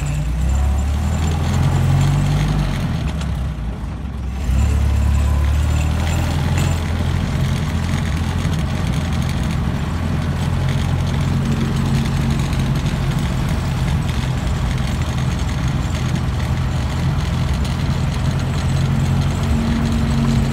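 The 1922 Essex Coach's four-cylinder engine running as the car drives along, heard from inside the cabin as a steady low drone. It drops briefly about three seconds in and comes back louder at about four and a half seconds.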